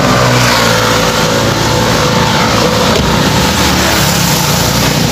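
A motor vehicle engine running close by, with steady low tones under a loud wash of traffic noise.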